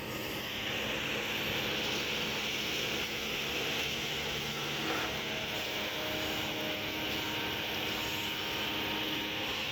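Kobelco excavator's diesel engine running steadily under load, with a hiss setting in at the start and holding throughout.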